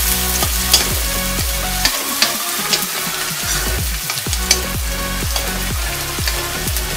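Chopped garlic, onion and curry leaves sizzling in hot oil in a kadhai as a metal ladle stirs and scrapes them, with sharp clinks of the ladle against the pan: the tempering for dal tadka. Underneath runs electronic dance music with a steady kick beat about four times a second, which drops out briefly about two seconds in.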